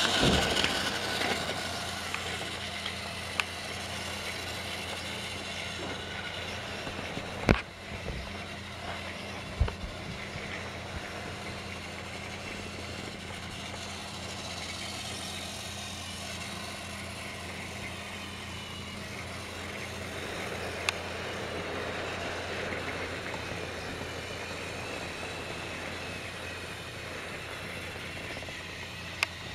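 Trackmaster motorized toy train whirring steadily as it runs along plastic track, with two sharp clicks about seven and a half and nine and a half seconds in.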